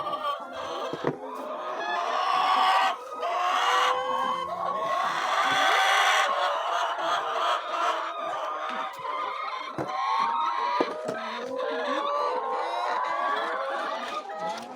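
A flock of laying hens clucking and calling continuously, many birds at once, with occasional knocks.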